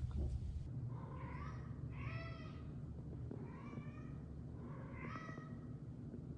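Domestic cat giving four short meows, spaced a second or more apart.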